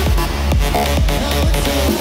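Electronic music with a steady kick drum about two beats a second over a heavy bass line.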